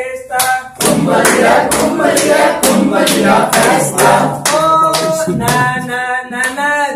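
A group of people singing together. In the first half, hand claps keep time about twice a second.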